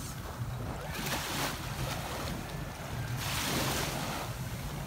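Small waves lapping and washing up onto a sandy shore, with wind buffeting the microphone. The wash swells a little after three seconds in.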